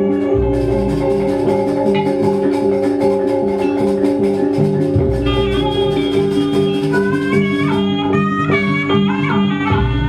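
Gamelan music accompanying a jaranan performance: ringing metal mallet percussion over steady held tones, with a deep low stroke about every five seconds. A higher, wavering melody line comes in about halfway.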